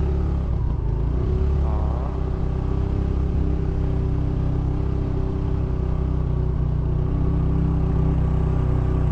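Motorcycle engine running at a steady cruising speed while riding, with a heavy low rumble underneath.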